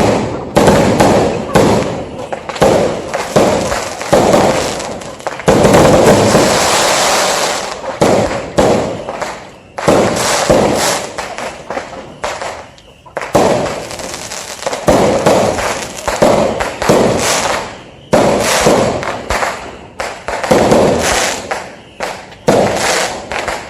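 Fireworks exploding one after another: a run of sudden loud bangs, each trailing off. The bursts run together into a dense stretch about six seconds in.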